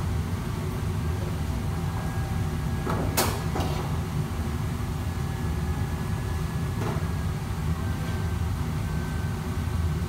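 Steady low roar of a commercial kitchen's wok burners and exhaust hood, with a sharp knock about three seconds in and a fainter one near seven seconds.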